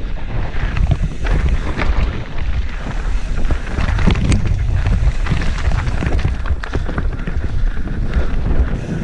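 Wind buffeting a helmet-mounted camera's microphone as a mountain bike descends fast over a rocky trail, with a steady low rumble and a constant clatter of sharp knocks from the tyres and bike hitting stones.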